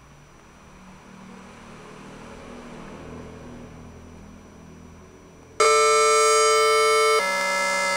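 Synthesised electronic tone generated by a Processing sketch from an Arduino potentiometer's readings: it switches on abruptly about five and a half seconds in as a steady pitched tone, then drops to a lower pitch with more overtones about a second and a half later. Before it there is only faint room noise.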